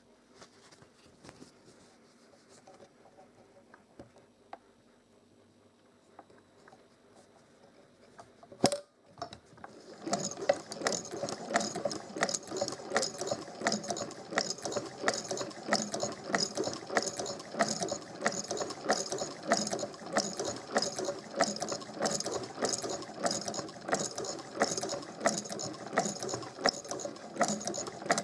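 Vintage Frister & Rossmann sewing machine stitching through cloth: after a sharp click a little before nine seconds, it starts up about ten seconds in and runs on with a steady, rapid mechanical clatter. It is sewing again after being stripped down and cleaned as a non-working machine.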